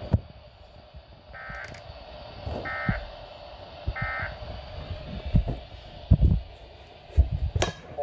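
Weather radio sounding the SAME end-of-message signal: three short digital data bursts about a second apart, warbling tones over a steady static hiss, marking the end of an alert broadcast. A few low thumps follow near the end.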